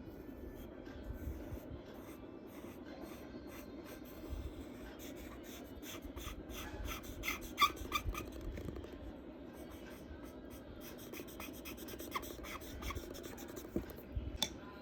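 Charcoal scratching and rubbing on paper in short, quick strokes, thickest in the middle of the stretch, over a steady low hum.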